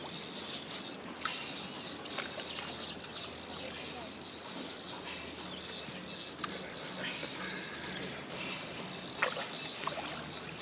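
Fishing reel being cranked as a fish is reeled in, its gears and ratchet clicking steadily.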